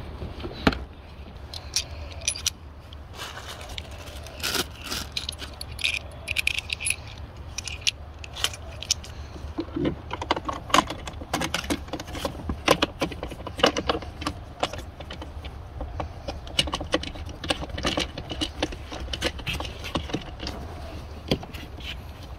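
Irregular clicks, light knocks and rattles from an Ozito 36V lawn mower's plastic handle clamp levers and handle parts, worked by hand as the quick-release levers are flipped and snapped shut.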